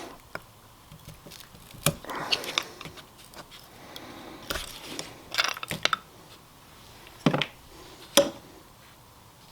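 Scattered light clicks, taps and brief scrapes of small engine parts and seals being handled and turned over by hand.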